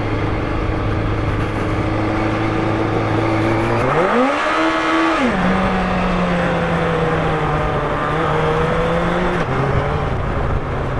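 Yamaha FZR1000 inline-four motorcycle engine running steadily at low revs, revving up sharply about four seconds in, then settling to a steady middle pitch and dropping back to low revs near the end.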